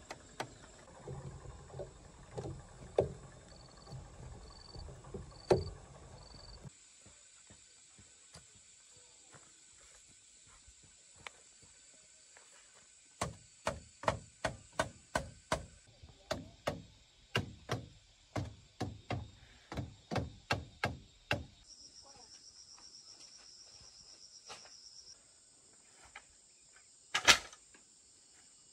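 A hand tool striking bamboo: scattered knocks at first, then a steady run of strikes about two a second lasting around eight seconds, and one louder strike near the end.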